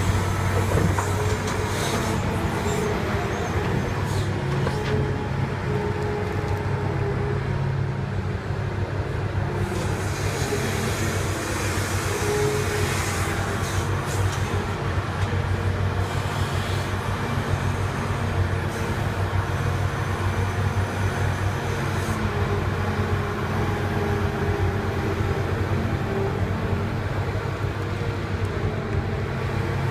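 Large excavator's diesel engine running steadily under work, a constant low drone with a mechanical clatter over it.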